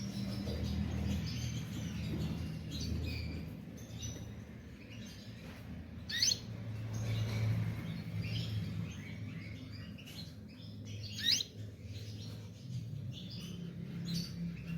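Canary song: a run of quick chirps and trills, with two sharp, loud notes about six and eleven seconds in, over a low steady hum.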